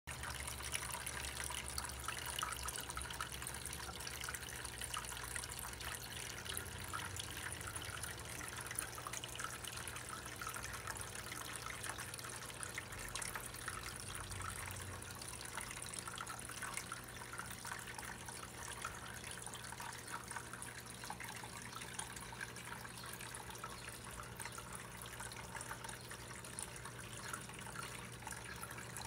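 Small rock waterfall in a terrarium trickling and splashing steadily, over a low steady hum.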